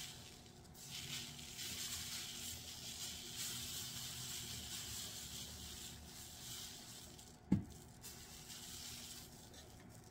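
Fine glitter shaken from a small jar onto a tumbler and paper, a soft steady hiss. One thump about seven and a half seconds in.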